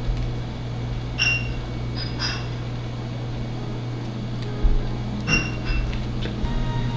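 Kitchen background: a steady low hum from running equipment, with several short ringing clinks (about a second in, twice around two seconds, and a cluster a little after five seconds) and a soft low thump just before five seconds.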